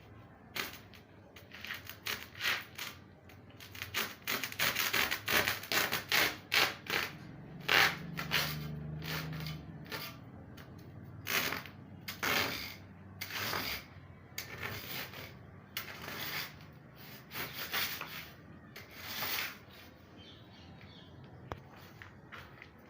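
Irregular scraping and rubbing strokes of a hand tool on a hard, rough surface, coming several to a second in busy runs, with a short low hum about eight seconds in.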